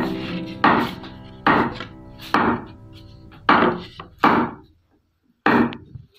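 Background music made of struck, pitched notes, each ringing out and fading, about one every second, with a brief break near five seconds.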